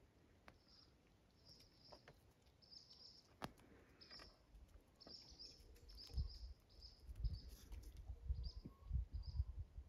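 Small birds chirping: a run of short, high chirps, coming several a second at times. A low rumble comes in during the second half and is the loudest thing there.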